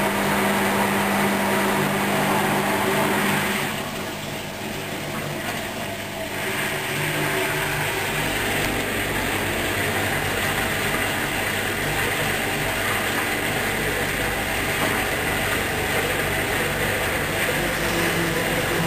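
Hoover DYN 10124 DP washing machine spinning at 1800 rpm, a steady mechanical drone from the drum and motor. It changes and drops a little about four seconds in, then holds steady again.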